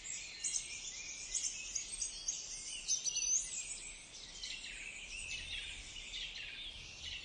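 Many small birds chirping and twittering at once, a busy, high-pitched chorus of short chirps and quick little glides.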